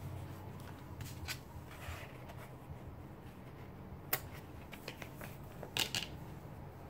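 Washi tape and paper being handled on a journal page: light rustling with a few short, sharp clicks, the loudest about four seconds in and again near six seconds.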